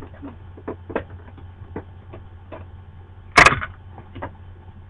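Scattered light clicks and taps over a steady low hum, with one loud, brief rustling bump about three and a half seconds in, like something knocking against the webcam microphone.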